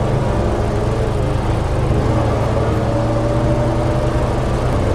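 Vehicle engine running steadily, heard from inside the cab through a dashcam's microphone as a constant low drone.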